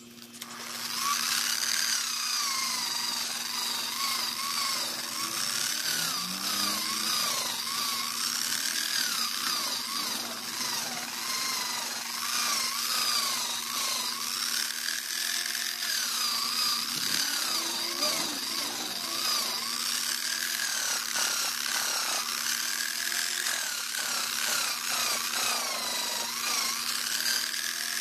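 Angle grinder fitted with a wool buffing pad starts up about a second in and runs steadily, its motor pitch dipping and rising again and again as a carbon-fibre paddle shifter is pressed against the spinning pad to polish its fresh coat.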